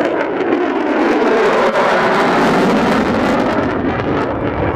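F-35 Lightning II jet fighter flying a hard, high-g turn. Its single Pratt & Whitney F135 engine gives a loud, rough rushing noise that swells about two seconds in, and a deeper rumble builds toward the end.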